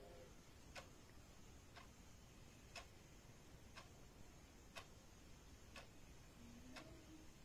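Faint ticking of a clock, one tick each second, seven ticks in all, over quiet room tone.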